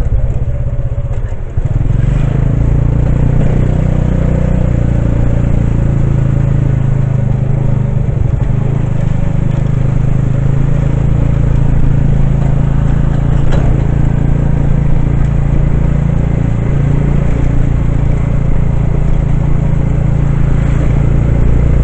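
Steady engine and road noise of a moving vehicle, heard from on board, with a brief dip about a second and a half in.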